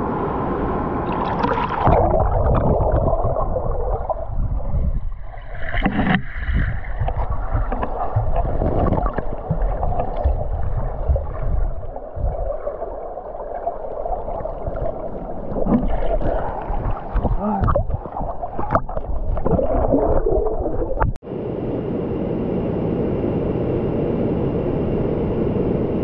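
Muffled underwater sound of a swimmer moving through a river pool: gurgling and sloshing water as heard through a camera held under the surface. About 21 seconds in it cuts to the steady rush of a waterfall close by.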